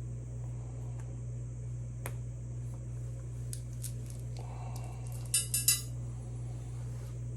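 Three sharp metal clinks in quick succession about five seconds in, like steel tools or parts knocking together, over a steady low hum.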